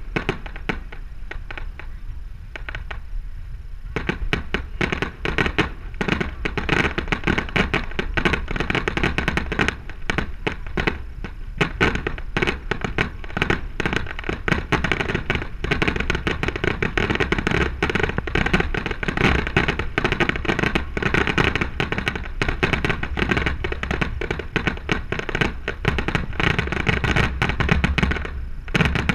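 Aerial fireworks display: a dense barrage of shell bursts, bangs and crackles, sparser for the first few seconds and then near-continuous.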